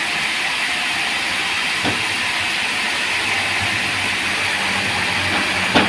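Band sawmill running with a steady hiss. There is a knock about two seconds in and a sharper, louder one near the end.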